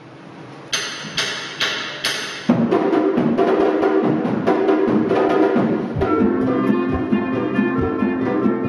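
Four sharp percussion strikes about half a second apart open the piece, then a Chinese folk ensemble of dizi bamboo flutes, erhu and electronic keyboard comes in playing a lively tune.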